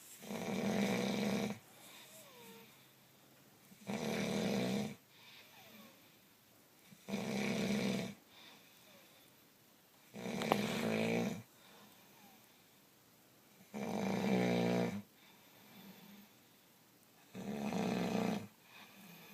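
Loud, regular snoring: six snores about three and a half seconds apart, each lasting about a second, with quiet breathing pauses between them.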